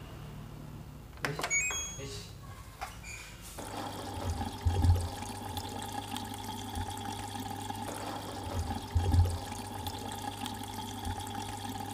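Water running into a washing machine over a steady electrical hum, with a few clicks in the first two seconds.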